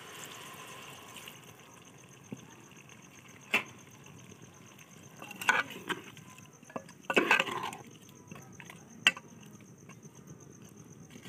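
A metal ladle stirring curry in an aluminium cooking pot, clanking sharply against the pot several times, with a cluster of knocks and scrapes about seven seconds in. Insects trill steadily and faintly in the background.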